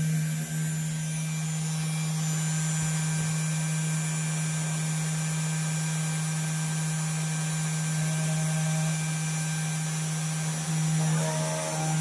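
3018 CNC router's spindle motor running with a steady hum, its engraving bit coming down to start isolation-milling a copper-clad circuit board. A higher whine joins briefly about eight seconds in and again near the end.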